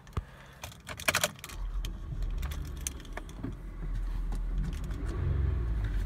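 Keys rattle and click in the ignition, then a Toyota's engine comes on about a second and a half in and idles with a steady low rumble through its stock, unmodified exhaust, heard from inside the cabin.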